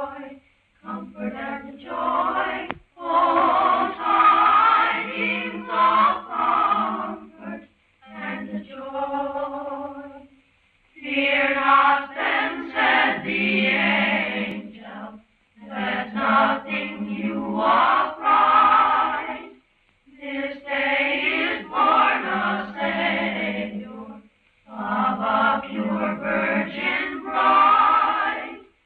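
A choir singing in phrases of a few seconds each, separated by short breaths or pauses. The sound is dull and narrow, with no treble, as in an old recording.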